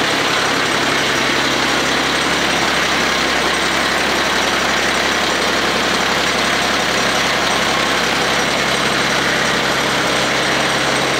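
Kioti CS2220 sub-compact tractor's three-cylinder diesel engine running steadily just after a cold start at −22 °C, still cold and warming up.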